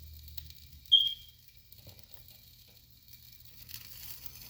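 A single short, high-pitched beep about a second in, over a faint low hum.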